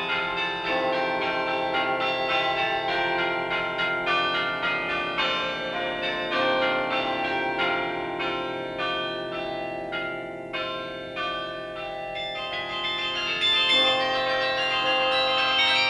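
Instrumental music of chiming bells, many bell notes struck in quick succession over sustained ringing tones.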